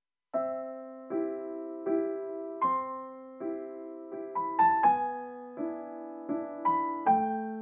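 Background music of slow keyboard chords, each struck and left to ring, starting just after a brief silence.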